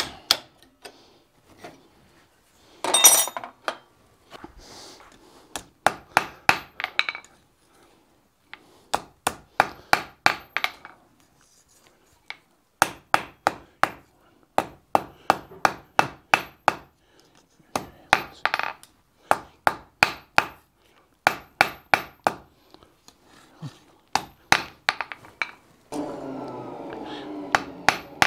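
Blacksmith's hand hammer striking red-hot iron on an anvil, in quick runs of several blows with short pauses between, forging out the split ends of a key's bow. A continuous rough rasping sound comes in near the end.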